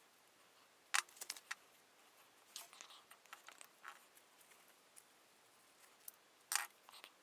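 Scattered light clicks and taps of small hard objects being handled, a few at a time, the sharpest about a second in and another near the end.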